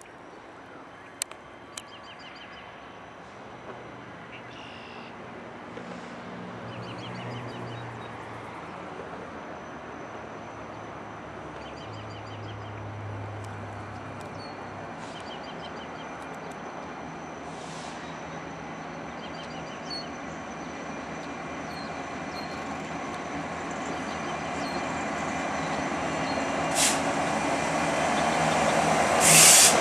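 Diesel freight locomotives approaching: a CN EMD SD75I leading an EMD SD40-2 and a GE C40-8W. Their engine rumble grows steadily louder as they near, with birds chirping in the first half. Two short bursts of hiss come near the end, the loudest sounds.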